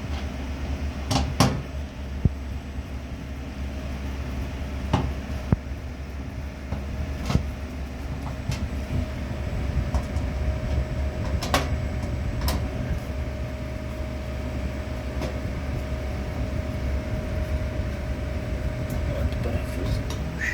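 Scattered clicks and knocks of a hand screwdriver and screws against the washer-dryer's metal rear panel as the cover is screwed back on, over a steady low hum.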